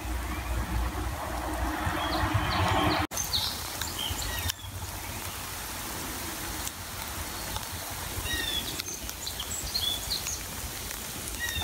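Steady outdoor hiss with a low rumble, and birds chirping faintly in the background: short, falling chirps now and then, most of them after a brief break in the sound about three seconds in.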